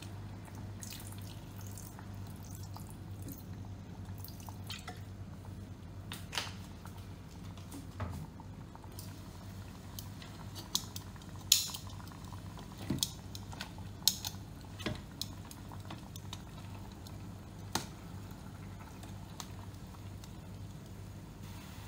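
Metal tongs clicking and scraping against the inner pot of a Ninja Foodi as pork trotters are turned in soy sauce: scattered sharp clinks, bunched in the middle, over a steady low hum.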